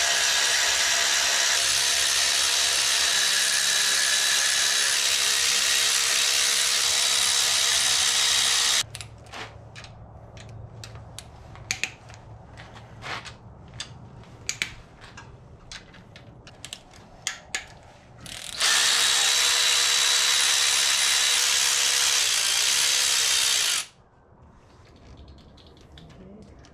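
A power tool running steadily for about nine seconds as it spins out the cylinder head bolts on an LS V8. This is followed by several seconds of sharp metallic clicks and hand ratcheting, then a second steady run of about five seconds that stops abruptly.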